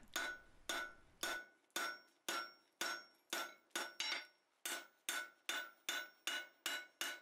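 Hand hammer striking a red-hot square steel bar on the anvil face, forging it round. The blows are steady, about two a second at first and quickening to about three a second in the second half, and each has a short metallic ring.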